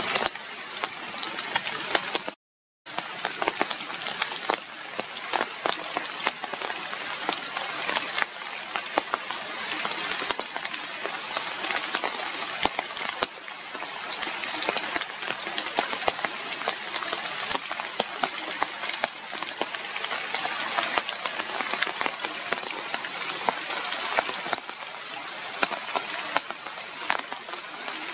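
Steady rain falling, a dense patter of many drops. It cuts out completely for about half a second about two seconds in, then carries on unchanged.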